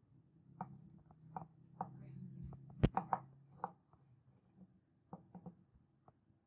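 Light clicks and taps of a glass dish of aqua regia being handled and tilted, the loudest a sharp click about three seconds in, over a faint low steady hum.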